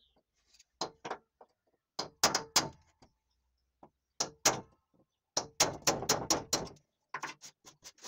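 A pointed steel awl scraping and gouging at a corrugated asbestos-cement slate sheet to wear a hole through it. It comes in groups of short, sharp strokes with pauses between, and a fast run of strokes past the middle.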